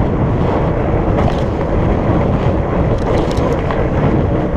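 Wind buffeting the microphone of a moving bicycle, a dense steady rush. Beneath it is a faint, steady hum from fat-bike tyres rolling on pavement.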